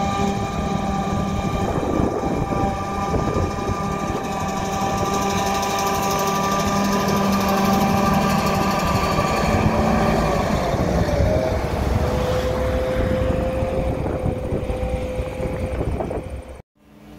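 John Deere 9900 self-propelled forage harvester chopping haylage, its engine and cutterhead making a steady loud drone with a high whine, together with the tractor hauling the wagon alongside. About ten seconds in, the whine drops in pitch and settles lower. The sound cuts out abruptly just before the end.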